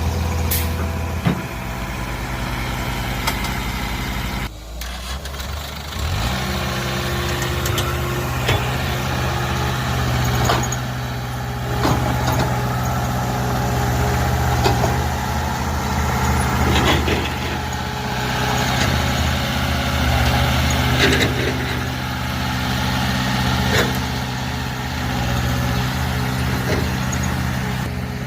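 Mini excavator engine running under hydraulic load while digging, its note shifting about a second in and dropping briefly around four to six seconds in. Repeated short knocks and scrapes of the bucket working the ground run through the rest.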